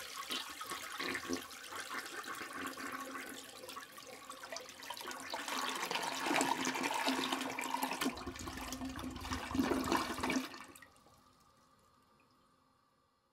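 Toilet flushing: a long rush of water that swells partway through and cuts off suddenly near the end, leaving a faint fading tail.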